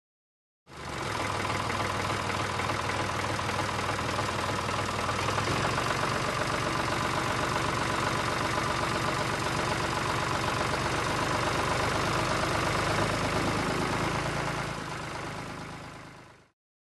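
Tractor engine starting suddenly and running steadily, its low note shifting about five seconds in, then fading away near the end.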